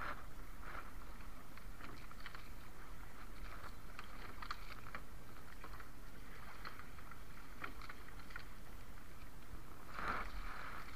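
Sea water lapping and splashing around a small wooden outrigger canoe while a gill net is hauled in by hand, with many light scattered clicks and rustles from the wet net. A louder wash of water comes near the end.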